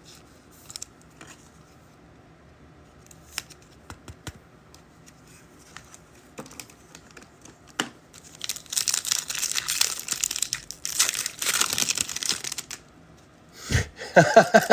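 A trading-card pack wrapper being torn open and crinkled: a few faint clicks of cards being handled, then about four seconds of loud, crackly crinkling starting about eight seconds in.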